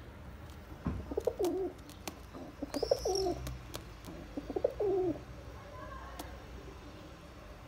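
Domestic pigeon cooing three times, about a second and a half apart, each coo rising and then falling in pitch, with a few sharp clicks in between.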